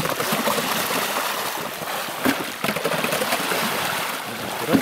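Snow shovels working the water and slush in a long hole cut in the ice, a steady sloshing and splashing with a couple of sharper splashes.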